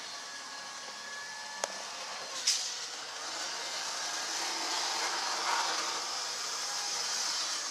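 HO-scale model train running on its track: a steady whirring hiss from its small motor and wheels on the rails that grows a little louder past the middle, with two sharp clicks about two seconds in.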